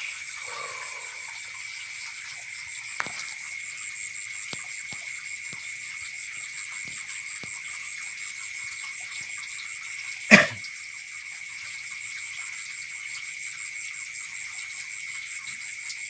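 Steady, high-pitched night chorus of insects and frogs at the pond edge, with a few faint ticks. One sharp, loud knock comes about ten seconds in.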